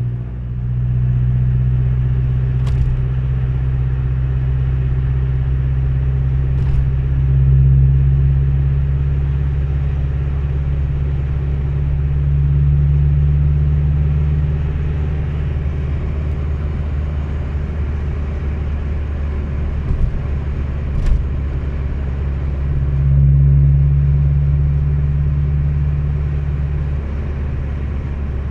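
Vehicle engine running with a steady low drone that swells three times, about 7 seconds in, again for a few seconds around 12 to 15 seconds, and around 23 seconds, as it is accelerated. A few brief sharp clicks.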